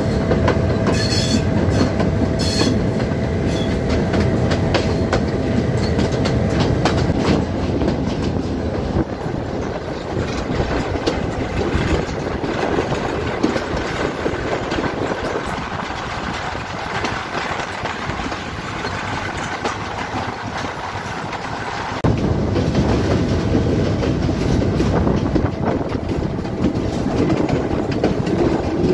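Moving passenger train, heard up close beside its wheels: a steady loud rumble with dense clattering of the wheels over the rails, and a thin steady whine for the first few seconds. It drops somewhat quieter in the middle, then jumps back up suddenly about three-quarters of the way through.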